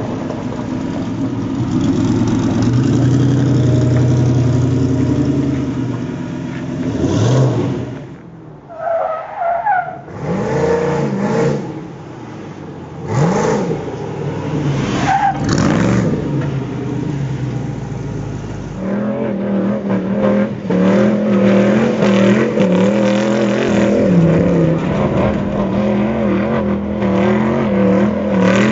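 Off-road race vehicle's engine running hard under load. Its pitch rises and falls several times in the middle, then from about two-thirds in it holds a steady high note.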